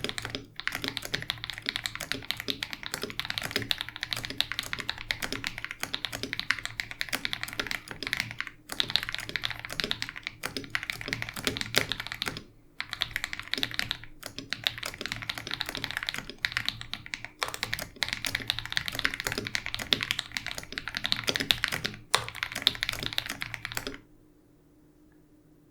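Fast, continuous typing on a KBD67 Lite R2 mechanical keyboard with lubed KTT Haluhalo switches, stock springs and stabilizers, and Geekark BoW keycaps: a dense run of key clacks with a few brief pauses. The typing stops near the end.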